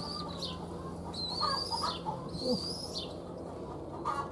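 Young pigeons squeaking: several high, thin whistled calls, three of them drawn out for about half a second, with short chirps between. A sharp click comes near the end.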